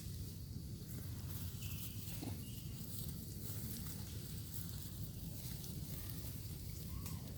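Outdoor ambience: a steady low rumble with light rustling, and a few faint short chirps now and then.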